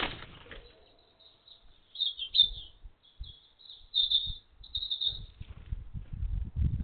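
Small garden birds chirping, short high chirps coming in quick clusters. There is a sharp knock at the start and a low rumble in the last second or so.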